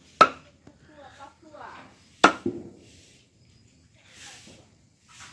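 Two sharp chops of a blade striking a cutting board, about two seconds apart, with soft handling sounds and faint murmuring between them.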